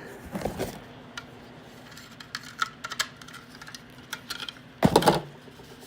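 Light clicks and taps of a plastic smoke alarm being handled and turned over, with a louder clatter about five seconds in.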